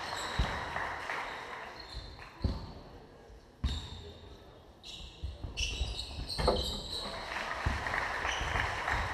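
Basketball bouncing on a wooden gym floor in a few heavy thuds, with sneakers squeaking and voices in the hall. The hall goes quieter for a couple of seconds around the free throw, then the squeaks pick up as play resumes.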